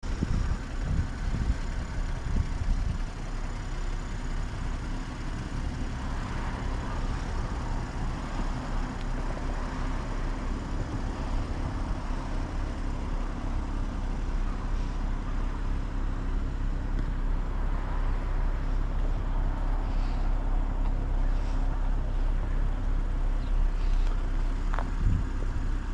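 2022 BMW M240i xDrive being driven, its B58 inline-six and the road giving a steady low rumble with a faint hum, slowly growing louder.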